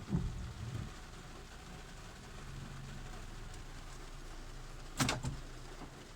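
Steady low hum of a car with its engine running. There are a few dull thumps in the first second and a sharp double knock about five seconds in.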